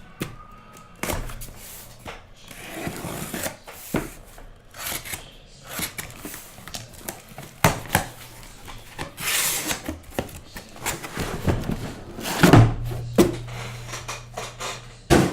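Hobby boxes of trading cards being handled on a table: irregular cardboard knocks, scrapes and rustling. The loudest rustle comes a little past halfway through.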